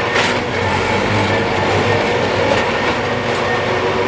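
Railway ballast tamping machine running on the track: a steady engine drone with a few sharp metallic clicks near the start.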